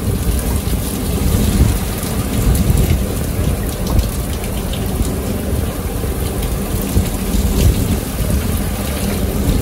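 Heavy rain pouring onto a ship's open deck over a rough sea, with a steady low rumble underneath.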